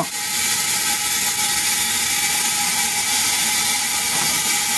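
Spark gap of a running high-voltage machine firing continuously, a steady electrical crackle that stays at an even level.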